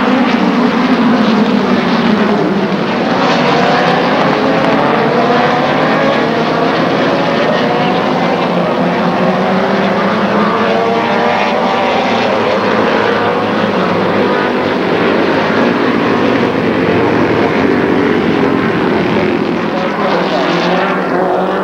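Several vintage Formula Junior single-seater race cars at full throttle, their engine notes overlapping and climbing and dropping in pitch as they accelerate, shift gears and pass by.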